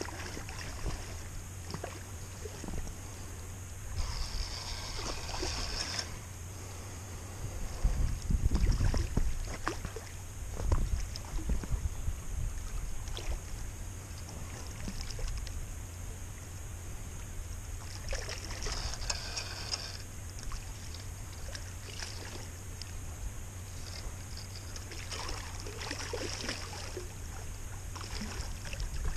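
River water flowing steadily, with a low rumble of wind on the microphone. Three times the rush swells louder for a couple of seconds, and there are scattered small clicks.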